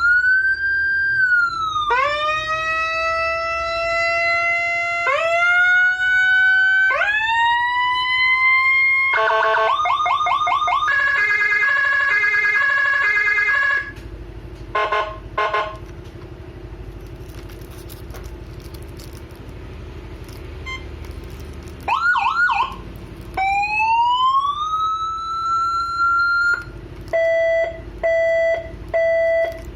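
Federal Signal and Whelen electronic emergency-vehicle sirens switching through their tones. First comes a run of rising sweeps, then a fast warbling tone. About halfway there is a quieter stretch with a few short blips, followed by a quick warble, a single rising sweep and evenly pulsed beeps near the end.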